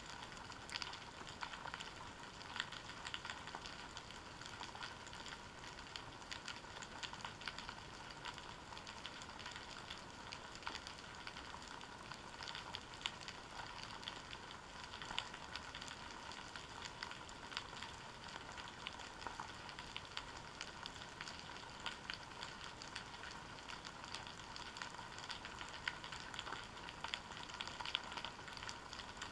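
Dense, steady underwater crackling and clicking on the seabed, heard through a sealed GoPro Hero 3 housing, with several faint steady high tones underneath.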